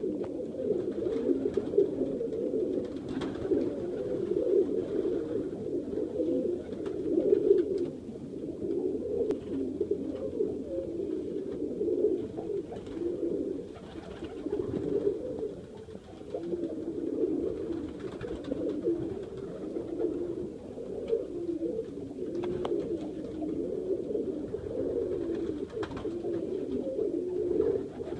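A flock of Serbian highflyer pigeons cooing continuously, several birds' low, rolling coos overlapping, with a few faint light taps among them.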